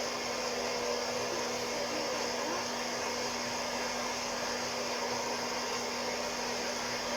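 Hot-air coffee roaster's fan and heater blowing steadily, with a constant low hum under the rush of air, mid-roast before first crack.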